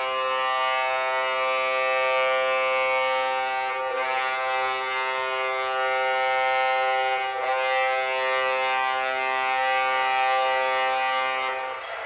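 NHL arena goal horn blowing one long, steady blast that lasts about twelve seconds and stops just before the end.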